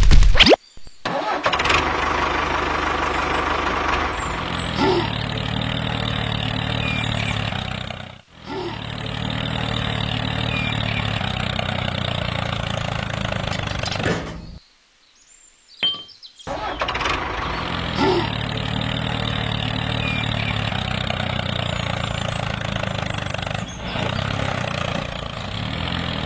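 DIY mini tractor running steadily as it pulls its trolley, with a steady engine-like drone. The sound drops out briefly about 8 seconds in, then cuts out for about two seconds midway before resuming.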